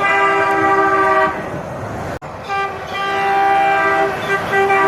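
Semi truck air horn sounding a long multi-tone chord, like a train horn, that stops about a second and a half in. After a short lull and a sudden break, a second long air-horn chord starts at about two and a half seconds and holds to the end.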